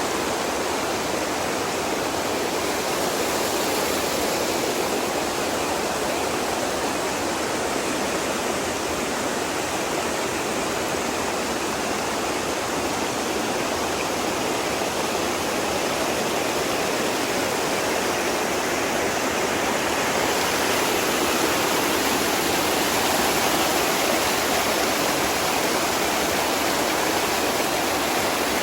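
Rushing water, a steady, unbroken hiss of flowing water, swelling slightly about two-thirds of the way through.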